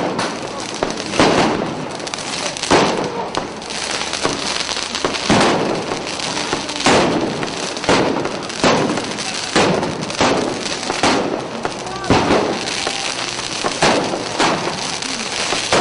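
Fireworks and firecrackers going off in quick succession, a loud bang every second or so with crackling between, over shouting voices.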